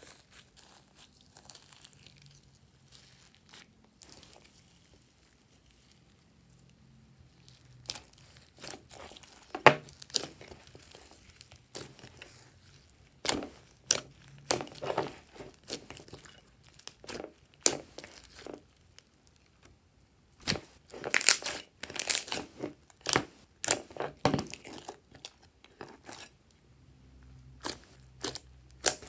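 Hands kneading and squishing glossy slime mixed with beads and sequins: sticky crackles and sharp pops of trapped air, coming in quick clusters. The clusters are thickest in the second half.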